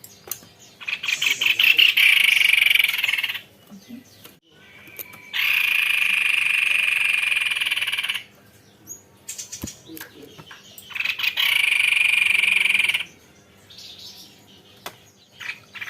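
White-bibbed babbler (tepus leher putih) singing three long, even, rolling trills, each two to three seconds long. Short scattered notes fall in the pauses between them.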